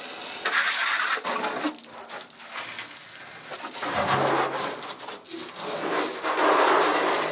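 Pressure-washer jet spraying against the rusty sheet-metal underside of a 1965 VW Beetle body: a loud, spattering hiss that swells and dips as the stream moves across the panels.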